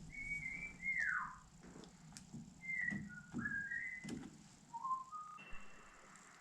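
A person whistling a short tune of stepping and gliding notes, with a few light clicks of handling.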